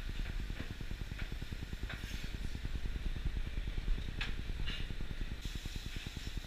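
Low, fluttering rumble of commercial gas range burners running under a grill plate, with a few light clicks of utensils.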